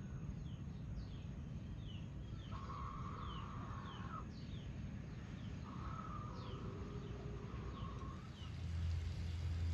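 Bird calls over a low, steady background of a simmering pan. Short falling chirps repeat irregularly throughout, and two long level calls come a few seconds apart, the second the longer.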